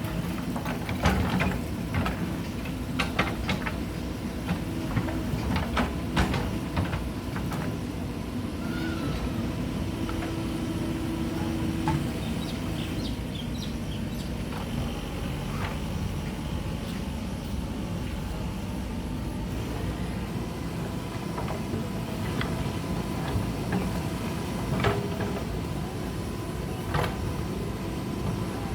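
Mahindra backhoe loader's diesel engine running steadily under work, with sharp clanks and knocks, many in the first several seconds and a few more later on.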